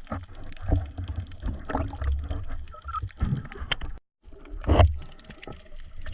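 Water sloshing and splashing over a low rumble, with scattered knocks; the sound drops out for a moment a little after the middle.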